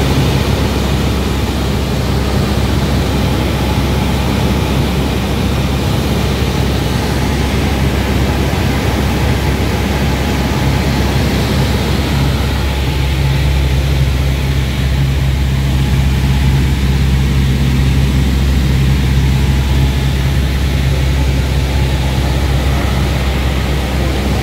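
Cessna 172's four-cylinder piston engine and propeller running steadily in flight, heard from inside the cockpit as a constant low hum under a rush of air over the cabin.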